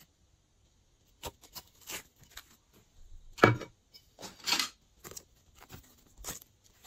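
Hands handling and flexing soft sheets of textured modelling clay. The sound is a string of irregular soft clicks and rustles, with two louder ones around the middle.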